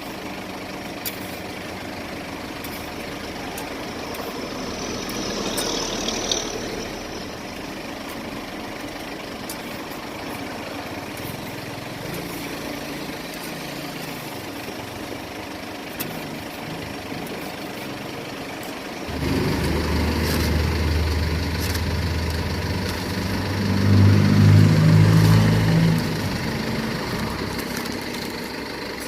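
Steady street background with a motor vehicle's engine running close by, rumbling louder about two-thirds of the way through, peaking briefly and then easing off. A few sharp clicks are heard, and a short hiss comes and goes early on.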